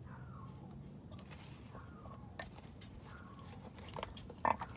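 Plastic gear-oil bottle being squeezed to push oil into a rear differential: faint crackling of the plastic with low gurgling and a few clicks, the sharpest click near the end.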